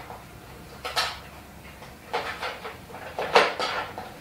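Hand tools and metal equipment parts knocking and clinking as they are handled and set down: a knock about a second in, a run of clinks around two seconds, and the loudest clatter near the end.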